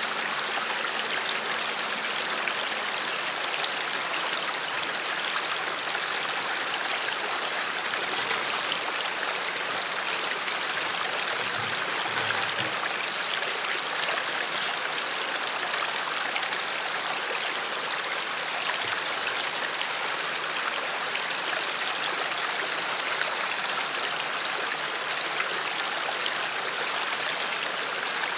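Steady rushing of a shallow stream flowing over rocks.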